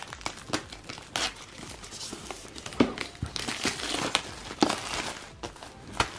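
Plastic shrink-wrap film being peeled and crinkled off a cardboard box, with irregular crackling and several sharper snaps.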